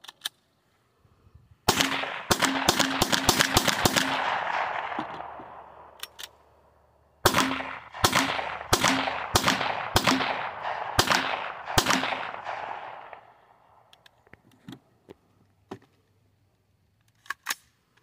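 Handgun fired in two rapid strings of about eight shots each, the first quick-fire and the second a little slower. A few faint clicks follow near the end.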